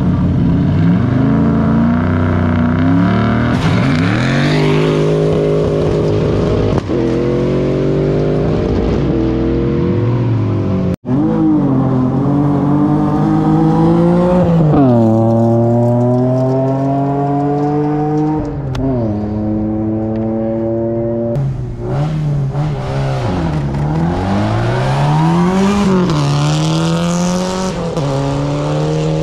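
Rally car engines at full throttle, passing one after another, their pitch climbing and dropping sharply with gear changes and lifts off the throttle. The sound cuts out for an instant about eleven seconds in.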